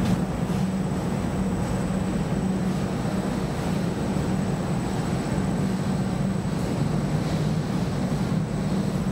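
EDRO DynaWash three-pocket end loader washer-extractor running its wash/rinse step: a steady low machine drone of drum and drive motor, with a thin high whine above it.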